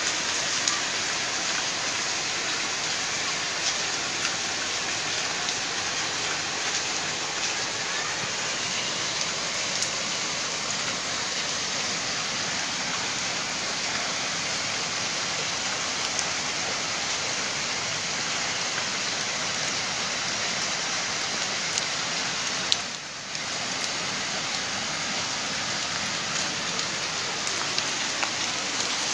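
Heavy monsoon rain pouring down as a dense, steady hiss, with scattered small drop ticks. The sound dips briefly with a click about 23 seconds in.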